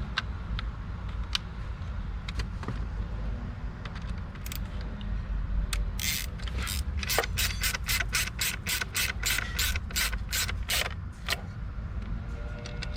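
Socket ratchet clicking as it is worked: a few scattered clicks, then about halfway through a quick, even run of clicks at three to four a second that stops shortly before the end. A steady low rumble runs underneath.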